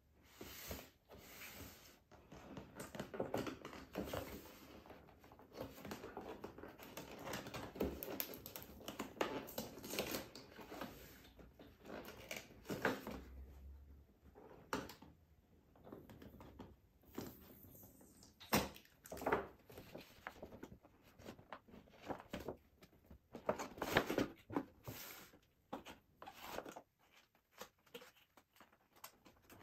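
Toy packaging being opened and handled: irregular tearing, crinkling and rustling with scattered clicks and knocks.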